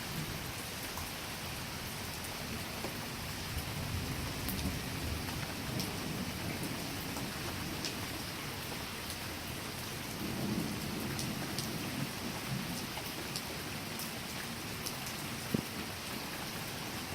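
Steady rain pattering down, with scattered drop ticks, as distant thunder rolls twice: a low rumble a few seconds in and another, stronger one about ten seconds in. A single sharp tap sounds near the end.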